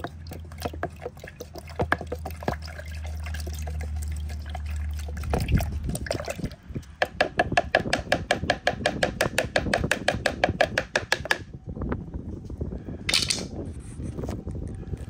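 Liquid fertilizer mix being stirred fast with a wooden paint stir stick in a plastic measuring pitcher: rhythmic sloshing and the stick clicking against the plastic, quickening about halfway through and stopping about eleven seconds in. A steady low hum runs under the first five seconds.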